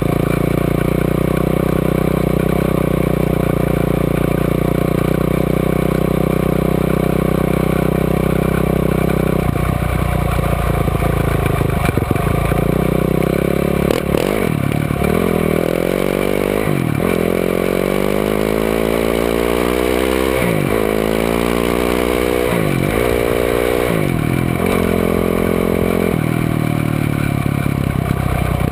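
Quad (ATV) engine heard on board while riding, held at steady revs for about the first ten seconds, then revving up and dropping back sharply several times as the throttle is worked.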